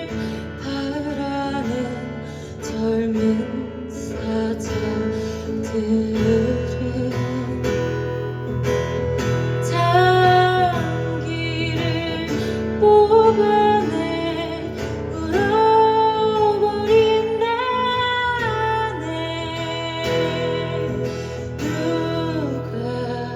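A song played live on strummed acoustic guitar with a voice singing over it, holding some notes long with a waver.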